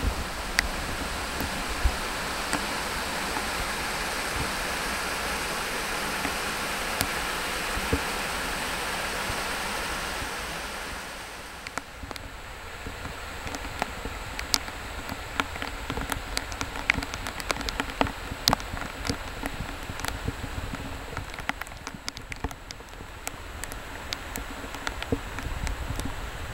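Steady rushing of waterfall cascades swollen by heavy rain. About eleven seconds in, the rush drops away to a softer rainy background broken by many sharp ticks of raindrops landing close by.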